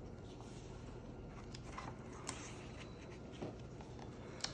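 Faint rustles and light ticks of hands handling the paper pages of a thin picture book, with a sharper tick about two seconds in.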